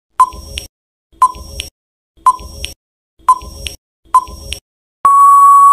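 Quiz countdown timer sound effect: five short beeps about a second apart as the count runs from five to one, then a long steady beep about five seconds in that marks time running out.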